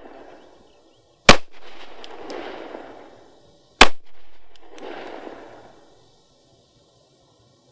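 Two shots from a Glock G35 .40 S&W pistol, about two and a half seconds apart, each followed by a long echo that dies away over a second or more.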